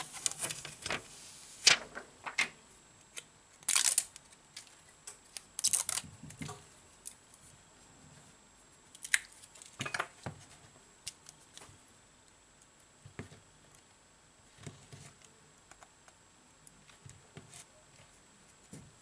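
Plastic protective film being peeled off the back of a replacement phone display, crackling in several short bursts over the first ten seconds. Then fainter, scattered light clicks and taps as the parts are handled and the phone frame is picked over with tweezers.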